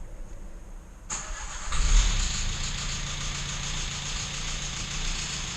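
Renault Megane engine started: the starter cranks about a second in, the engine catches with a brief flare of revs and settles into a steady idle. The idle carries the knock that the mechanic takes most likely for a crankshaft fault, not an air-conditioning pulley.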